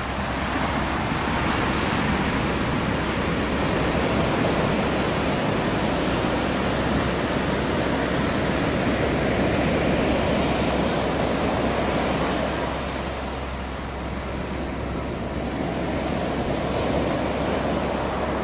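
Surf breaking and washing up a sandy beach: a steady rushing wash of waves that eases a little about two-thirds of the way through.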